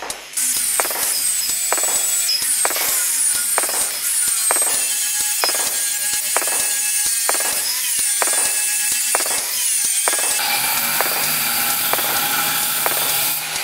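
Angle grinder with an abrasive cut-off disc running and cutting through steel bar, a loud continuous high whine and grinding hiss. From about ten seconds in, an abrasive chop saw cuts a round steel rod.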